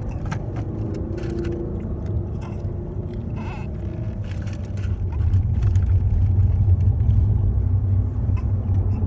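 Road noise inside a moving car's cabin: a steady low rumble that grows louder about halfway through, with scattered light clicks and rustles close by.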